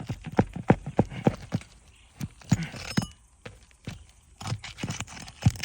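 Footsteps on an asphalt shingle roof: a run of sharp, irregular knocks and scuffs, quick at first, then sparser.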